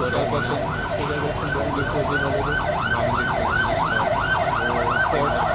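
Emergency vehicle siren sounding continuously in a fast yelp, its pitch sweeping up and down about three to four times a second.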